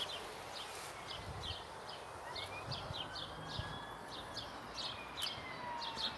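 Small birds chirping repeatedly over a steady outdoor background hiss, with a few faint gliding whistles among the chirps.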